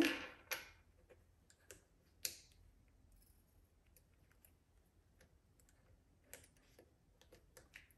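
Faint, scattered light clicks of hands handling plastic sewing clips and vinyl, ending in a quick run of small clicks.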